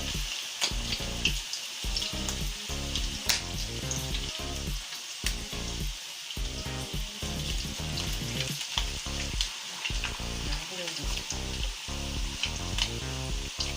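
Birria flautas frying on the stove, a steady sizzle with scattered sharp pops.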